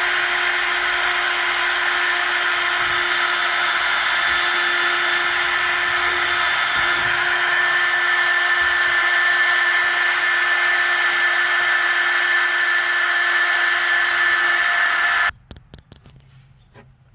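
Handheld power tool running flat out at a steady high speed with a constant whine, cutting off suddenly near the end.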